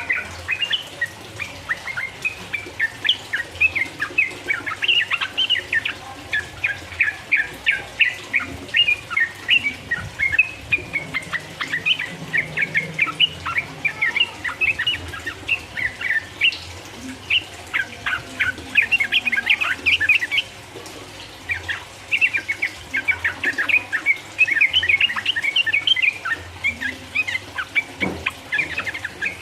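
Yellow-vented bulbul (trucukan) singing long runs of rapid chattering notes in quick succession, with a brief pause about two-thirds of the way through. This is the fast, continuous 'ropel' song used as a lure to provoke a rival bird.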